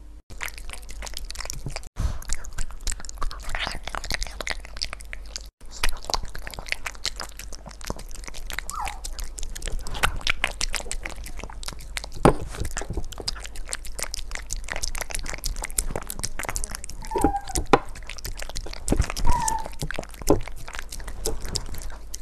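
A poodle eating soft pumpkin and seafood soup from a bowl, right at a clip-on microphone: a dense, unbroken run of wet chewing, lapping and smacking clicks. A few brief squeaky notes come in about nine seconds in and again near the end.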